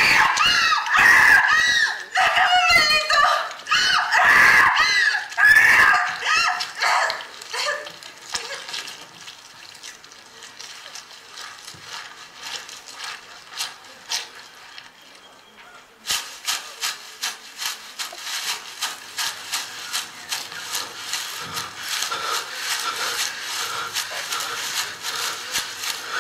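Voices shrieking in high, gliding cries for about six seconds, then dying down. From about two-thirds of the way in comes a steady run of sharp knocks, about two a second.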